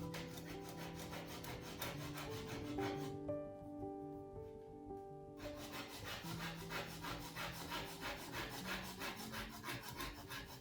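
Wood being worked by hand in quick, even back-and-forth rasping strokes, about four a second, as in sanding or sawing a board. The strokes pause for a couple of seconds early on, then resume. Soft background music plays underneath.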